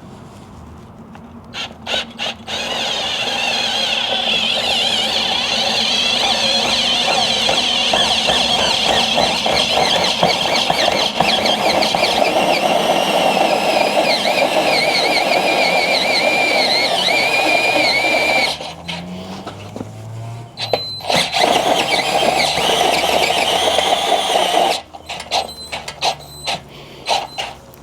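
Drill bit squealing as it bores a 7/8 inch hole into the top of a steering knuckle, a high wavering screech in one long run, then a pause with a few clicks and a second shorter run near the end.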